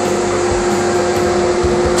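CNC router spindle running with a steady whine over a constant rushing noise as it carves wood.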